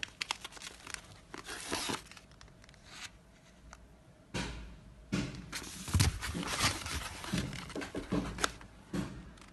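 Packing material crinkling and tearing in irregular bursts, with a few soft knocks, as remote controls are packed into a parcel.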